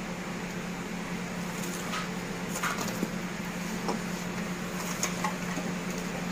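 A steady low mechanical hum, with a few faint, short clicks and light handling noises scattered through the middle.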